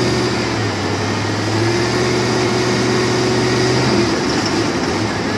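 2005 Chevy 2500HD engine power-braked and held at raised revs, running steadily for about four seconds before easing off. The owner reports a misfire and knocking at around 2,000 rpm under this load.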